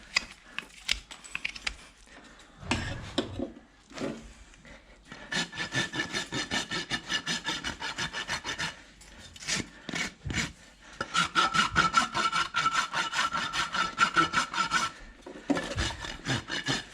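Hoof rasp being drawn back and forth across a horse's hoof in quick, even strokes, about three or four a second, in runs of several seconds with short pauses between.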